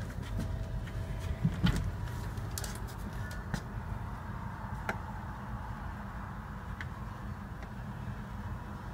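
A few sharp knocks and clicks in the first two seconds as a cat jumps at a storm door, over a steady low rumble of outdoor background noise.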